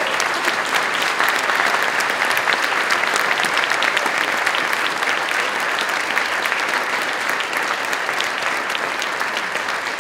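An audience applauding: a steady, dense clapping of many hands in a large room.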